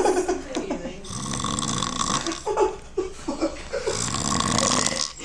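A sleeping man snoring loudly, two long rasping snores, one about a second in and another near the end, with brief whispers or stifled laughter between them.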